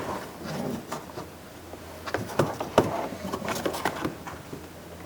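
Scattered light clicks, taps and rubbing from hands working behind a car's interior door panel at the latch rod clip.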